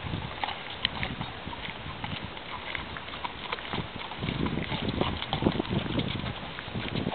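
A horse's hoofbeats, an uneven run of thuds and knocks, getting louder from about four seconds in.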